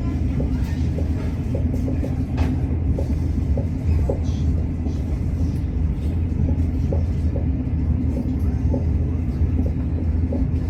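Etihad Rail passenger train running: a steady low rumble with many small, irregular ticks and rattles on top.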